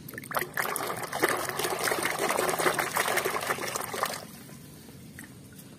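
Muddy water sloshing and splashing in a basin as a toy is swished and rubbed clean by hand. It runs for about four seconds, then stops.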